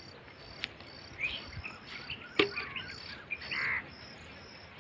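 Insects chirping in a steady high pulse, about two to three chirps a second, with birds giving short chirping calls through the middle. Two sharp clicks cut through, one about half a second in and one near halfway.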